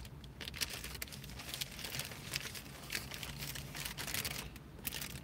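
Paper burger wrapper crinkling and rustling as it is handled and folded back around the burger, in many small irregular crackles.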